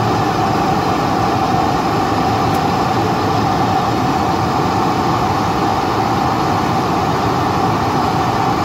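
Steady cabin noise inside a Boeing 747-400ER taxiing after landing: the engines' idle drone with a steady mid-pitched tone running through it.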